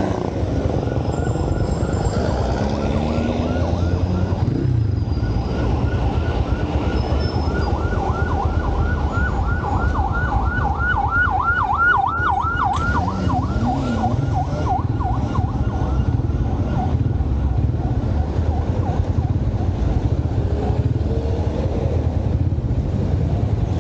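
Emergency vehicle siren in a fast yelp, several sweeps a second, growing louder to a peak about halfway through and then fading away. Beneath it, the steady running of the motorcycle's engine and road noise.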